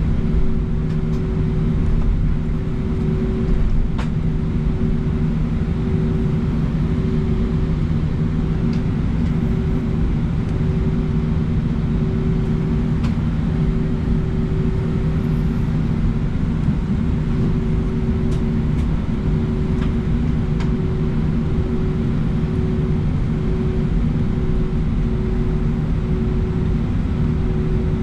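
Inside the cabin of an Airbus A319 taxiing: a steady low rumble from the jet engines, with a droning hum that wavers on and off about once a second.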